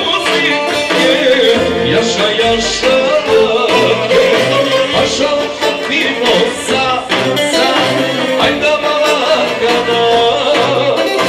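Live band playing amplified dance music on electric guitar and keyboard through PA speakers, with a singer's voice over it.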